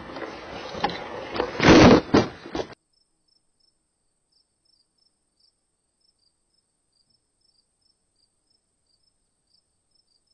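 Grass and leaves rustling and scraping against the onboard camera of an RC rock crawler as it pushes through vegetation, loudest about two seconds in, then cutting off suddenly before the three-second mark.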